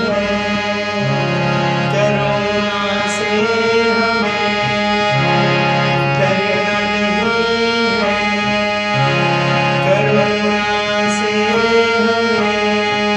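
Instrumental music with no singing: held chords that change about every second, in a pattern that repeats every four seconds or so.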